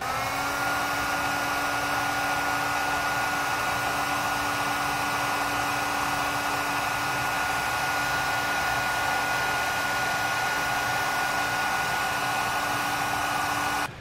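Heat gun running steadily while shrinking a heat-shrink butt connector on a wire: a rush of air with a steady whine. The whine rises as the motor spins up at the start, and the gun switches off suddenly near the end.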